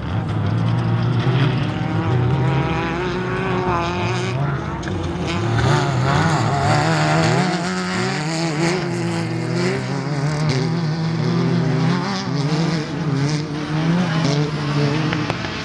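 Off-road race car's engine running hard under throttle, its pitch rising and falling again and again as the revs climb and drop with throttle and gear changes.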